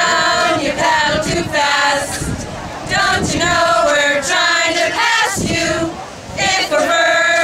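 A group of women singing their team cheer together as a song, in sung phrases with short breaks between them.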